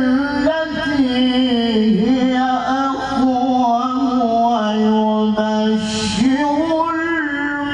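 A male qari chanting Quran recitation in the melodic murattal/mujawwad style into a microphone. He holds long, ornamented notes that waver and slide between pitches, dipping in pitch about two seconds in and again near six seconds.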